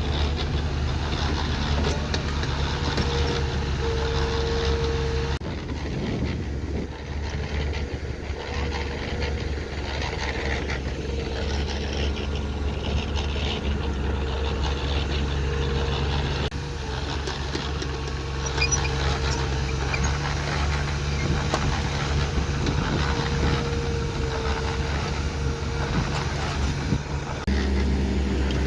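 Heavy earthmoving machine's diesel engine running steadily under work, with a whine that comes and goes. The sound changes abruptly about five seconds in, again past the middle, and near the end.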